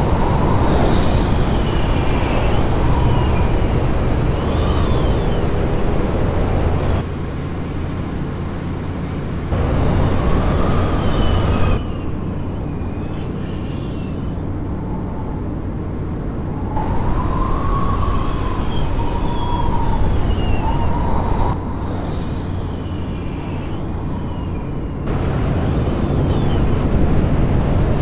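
Bushcat light-sport aircraft's engine and propeller droning steadily in flight, with wind noise over it. A wavering high whistle rises and falls now and then. The overall sound drops and jumps back several times as the picture switches between cameras.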